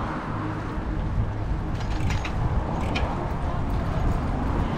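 Wind rushing over an action camera's microphone on a moving bicycle, a steady low rumble mixed with tyre noise on the path, with a few light clicks about two and three seconds in.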